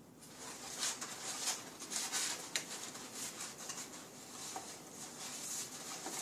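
Cut-out paper lamp pieces rustling and crinkling as they are handled and slotted together, with many short crackles throughout.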